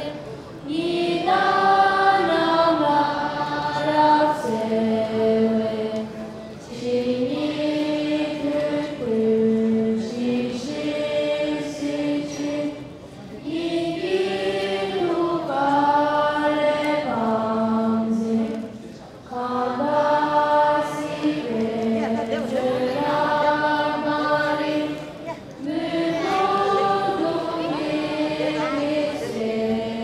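A group of young voices chanting a Tibetan Buddhist prayer in unison to a repeating melody. The chant comes in phrases of about five to six seconds with a short pause between them.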